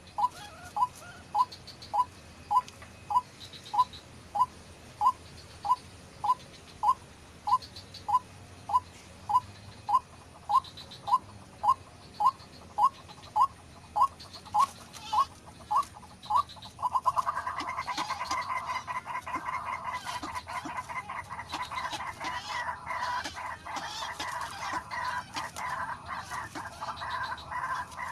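White-breasted waterhen calling: a steady series of single clucking notes, about two a second, giving way past the middle to a louder, continuous harsh chattering chorus.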